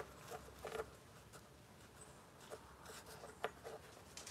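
Near quiet, broken by a few faint, scattered light taps and rustles.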